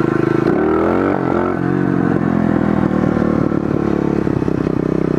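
Pit bike engine running as it is ridden. It revs up and back down briefly about half a second in, then runs at a steady speed.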